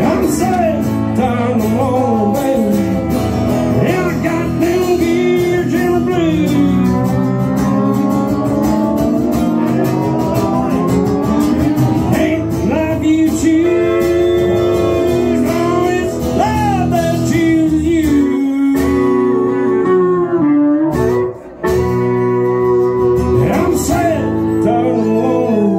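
Live country music from an acoustic guitar and a pedal steel guitar, the steel playing sustained notes that slide up and down in pitch. About three-quarters of the way through, the sound drops out for a split second.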